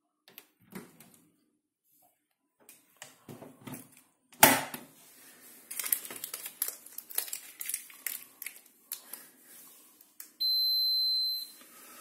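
Scattered clicks and handling knocks, one sharp knock about four seconds in, then a single high electronic beep lasting about a second near the end.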